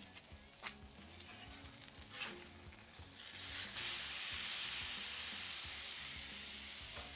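Prime steak sizzling in butter on a hot Blackstone flat-top griddle. About three seconds in, a metal spatula slides under it and turns it, and the sizzle becomes clearly louder.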